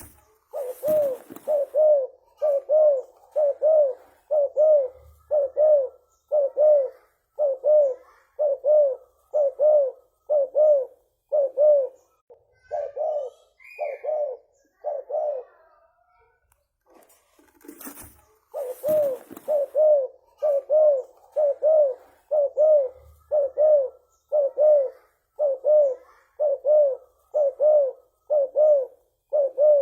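Spotted dove (tekukur) cooing in long, fast runs of repeated coos, about one a second, breaking off for a couple of seconds midway, then starting again. A sharp click comes just before the second run.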